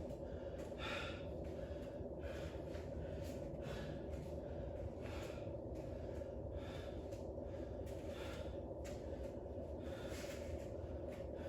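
A man breathing hard, with quick breaths in and out roughly every second, catching his breath after a set of weighted goblet squats. A steady low hum runs underneath.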